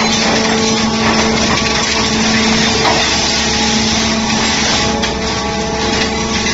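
Steady, loud running of heavy hydraulic machinery, the scrap shear's hydraulic power unit together with an excavator working its grapple, with a constant hum throughout.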